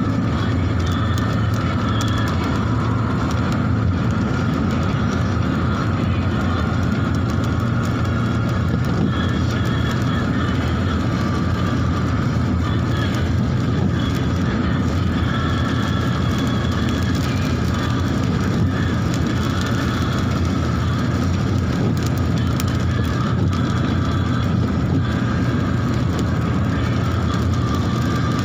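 Steady road and engine noise heard inside a car cruising at highway speed: a constant low drone with tyre noise.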